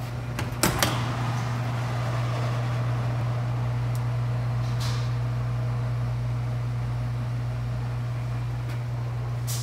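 Commercial bake oven running hot: a steady low mechanical hum with a whir over it, and a few clicks in the first second.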